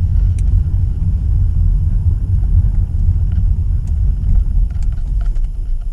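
Low, uneven rumble of a 2015 Acura TLX being driven, heard from inside the cabin, with a few faint ticks. The owner suspects a bad wheel bearing behind the car's droning noise.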